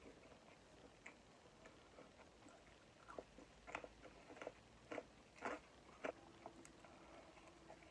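Faint chewing of pizza: a person's mouth clicking and smacking in short separate strokes, with a run of louder ones between about three and six seconds in.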